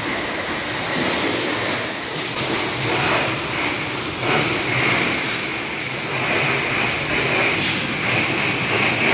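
High-pressure water jet from a hose spraying the wall of a poultry house: a steady rushing hiss that swells and fades a little as the spray moves.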